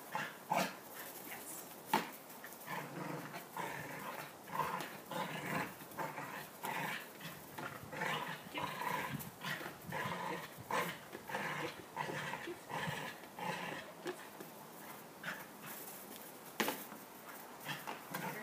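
Small dog growling in short, rough bursts, over and over, while playing tug on a flying disc. A few sharp clicks cut in, the loudest about two seconds in and again near the end.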